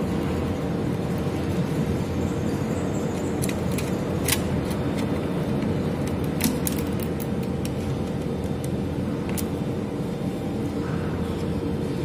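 Steady low background rumble, with a few sharp clicks and ticks as the screwdriver and wires are worked against the plastic switchboard terminals; the loudest clicks come about four and six and a half seconds in.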